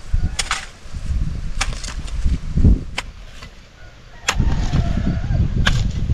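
A long-handled digging tool chopping into soil while a drainage trench is dug: five sharp strikes, about one every second and a half, over a low rumble.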